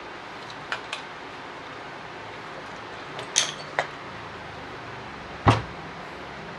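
Light clicks and knocks of plastic pump parts from a Bosch pressure washer being handled during disassembly: a few short clicks in the first half, then one louder knock about five seconds in.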